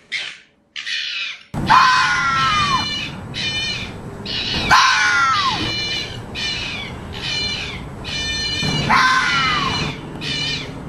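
Fox calls: after two short calls and a brief gap, a drawn-out falling scream-like call repeats about every three seconds, with quick runs of short barks in between.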